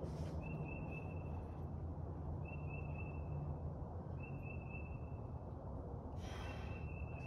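A high, even-pitched call about a second long, repeating every couple of seconds, over a steady low rumble. A short breathy burst comes a little after six seconds.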